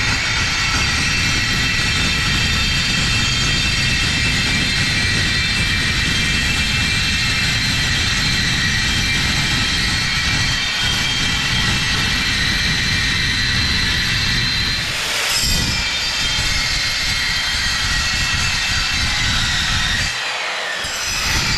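Electric saw cutting steel, a loud steady high whine over a grinding rush; it dips briefly about fifteen seconds in and again near the end, the pitch falling.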